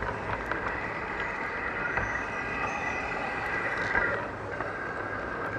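LGB garden-railway model train running along its track, with a steady whine from the motor and gearing and irregular clicks from the wheels passing over the rail joints, picked up from on board the train.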